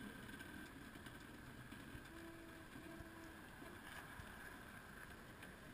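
Near silence: faint background hiss, with two faint, brief steady tones a little past the middle.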